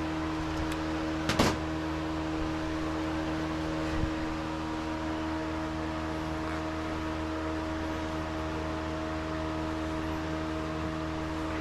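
Steady mechanical hum from a machine running in the background, with one sharp click about a second and a half in and a softer knock around four seconds.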